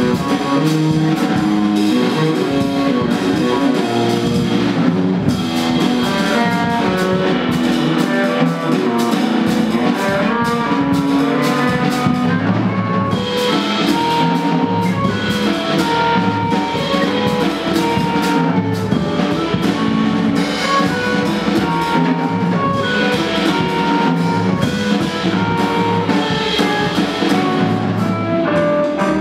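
Live instrumental music: guitar played over a drum kit, with a steady run of drum and cymbal strikes.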